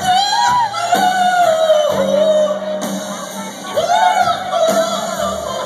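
Live rock band with a male singer belting two long, held phrases over the band, recorded loud from within the audience in a club.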